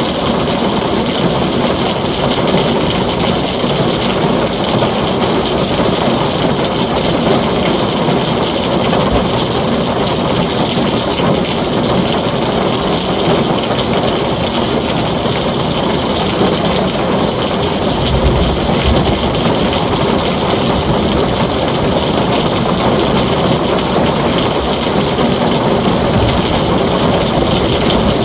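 Heavy rain pouring steadily on a tin roof, with a short low rumble of thunder about two-thirds of the way through.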